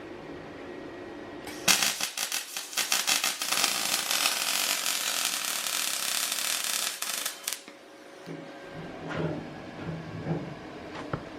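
An electric welding arc crackling and spitting in one continuous run of about six seconds, starting a couple of seconds in and cutting off suddenly.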